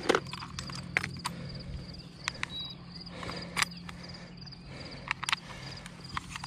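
Scattered sharp plastic clicks and knocks as a handheld digital fishing scale and a plastic tackle box are handled, about a dozen separate taps. Under them runs a steady, high, pulsing insect chorus.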